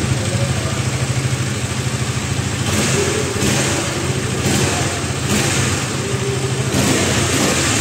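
KTM Duke 250 BS6's single-cylinder four-stroke engine running through its stock exhaust, idling and then blipped several times from about three seconds in. The note is subdued, which the owner regrets: 'pehle jesa sound nahi raha'.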